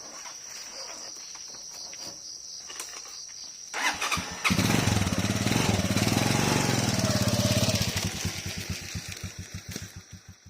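Insects trilling steadily, then about four seconds in a motorcycle engine starts and runs loudly with a fast even beat, fading and slowing toward the end.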